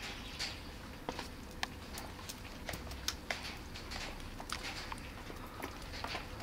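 Cat eating from a plastic container: irregular light clicks and crunches, a few a second.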